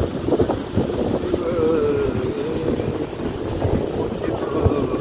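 Wind buffeting the microphone with a low, uneven rumble. A faint wavering tone runs through the middle.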